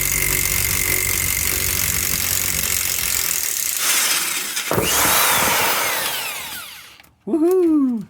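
Power impact wrench running hard on a stuck differential pinion nut, then winding down with a falling pitch and stopping about seven seconds in as the nut breaks free. A shout of "woohoo" near the end.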